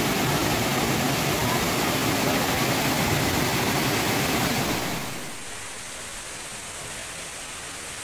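Steady roar of a tall waterfall, a dense rush of falling water. About five seconds in it drops to a quieter, thinner rush.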